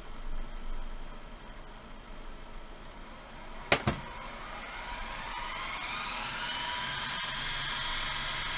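Toshiba DVR20 VHS tape mechanism going into fast forward: a sharp click a little under four seconds in, then the reel motor winds up with a rising whine that settles into a steady high whine as the tape spools at speed. The mechanism fast-forwards with the tape left wrapped around the head drum.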